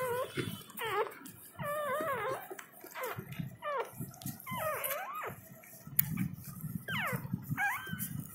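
Newborn puppy crying in a string of short, high-pitched squeals, about one a second, with a pause a little past the middle.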